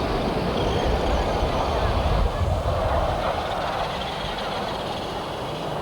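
Radio-controlled model race cars running around the track during a heat, with a steady mixed motor and crowd noise that eases slightly after about four seconds.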